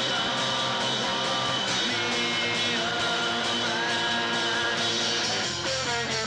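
Punk rock trio playing an instrumental passage with no vocals: distorted electric guitar over bass and drums, on a home-recorded cassette demo. Near the end the guitar moves into a choppier run of changing notes.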